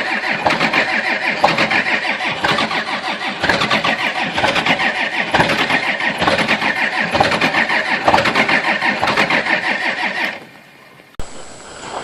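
A large engine being cold-started and running loudly with an uneven pulsing beat. It dies away about ten seconds in, and a quieter scene with a steady high whine follows.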